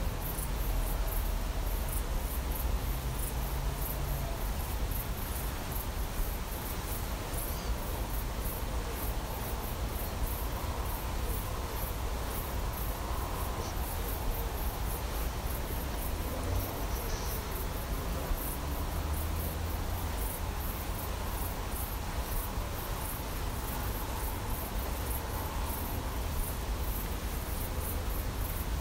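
Crickets chirping in a steady run of short, very high-pitched pulses, over a constant low rumble.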